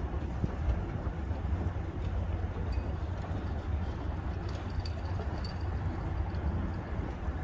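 A steady low rumble with an even hiss over it, and a few faint high chirps about three and about five seconds in.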